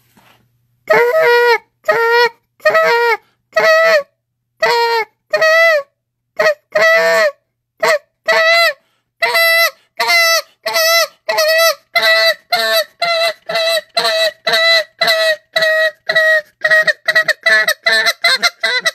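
A hand-blown goose call sounding spit notes: a run of short, clipped honk-like notes. At first they are spaced about half a second apart, with one longer, wavering note about a third of the way in, then they quicken to a fast run of about three notes a second.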